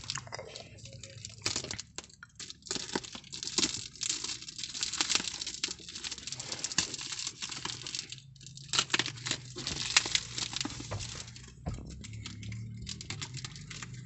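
Plastic bubble wrap crinkling and crackling in quick, irregular crackles as fingers pick at and pull it open, with tape being torn from it.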